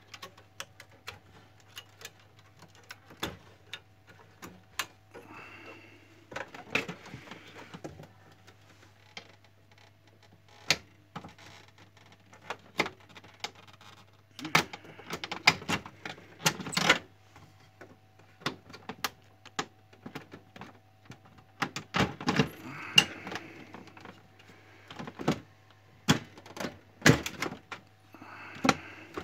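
Irregular clicks, knocks and scraping of plastic printer parts being handled as the scanner unit of an HP LaserJet 3055 MFP is opened up during disassembly. A faint steady low hum runs underneath.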